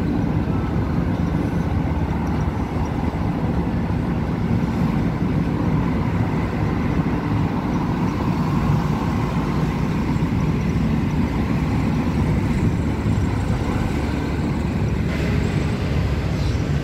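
Steady low rumble of motor vehicle and road noise, unbroken throughout.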